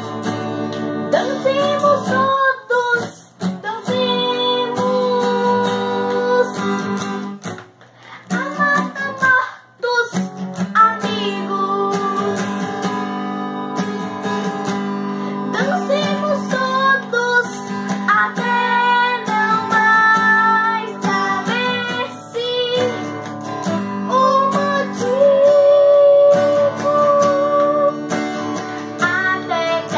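A girl singing a song while strumming chords on a nylon-string classical guitar, with a few brief breaks between phrases.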